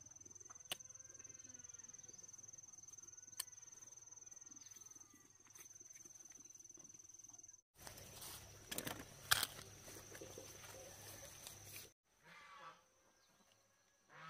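Faint outdoor rural ambience: a steady high insect trill with faint animal calls. After a cut about halfway through come a few seconds of rustling handling noise with sharp knocks.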